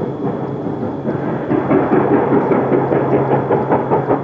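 Western Maryland Scenic Railroad's 2-8-0 steam locomotive No. 734 chuffing in a steady rhythm of exhaust beats, about four a second, working hard under load. The beats grow louder about a second and a half in.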